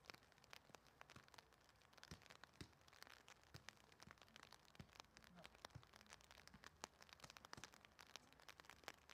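Near silence, with faint, irregular ticks and clicks scattered throughout.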